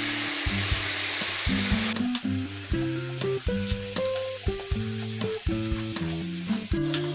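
Chicken pieces frying in hot oil in a pan, a steady sizzle that grows louder and brighter about two seconds in, with coriander and red chilli powder just added. Soft background music with a simple stepping melody plays over it.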